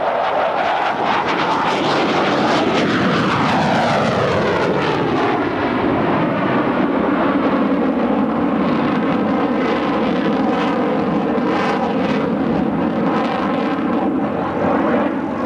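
F-15 Eagle's twin Pratt & Whitney turbofans roaring at full afterburner power as the jet passes low and climbs away. Its whine falls in pitch from about a second and a half in as the jet goes by, then settles into a steady roar.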